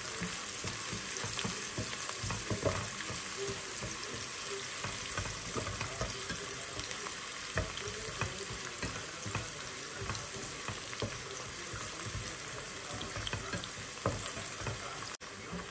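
Onions and garlic paste frying in hot oil in a pan, sizzling steadily, with scattered clicks of a spoon stirring against the pan.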